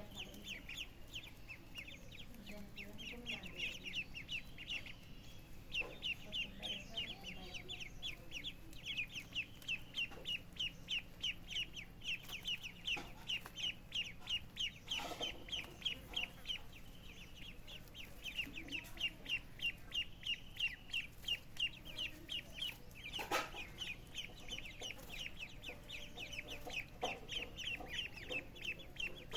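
Chicks peeping in a fast, steady run of short high chirps, several a second, with a couple of brief knocks partway through.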